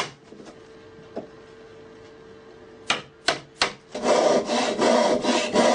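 A few sharp knocks of wood and tools, then from about four seconds in a hand saw cutting into wood in quick, rapid strokes.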